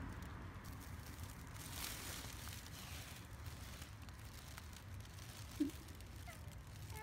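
A hand stroking a cat's fur, soft rustling over a low steady rumble. One brief short tonal sound about five and a half seconds in is the loudest moment.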